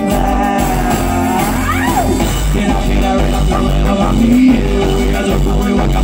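A live rock band playing loud, with a male lead vocal singing the end of a line over electric guitar, bass, drums and keyboards.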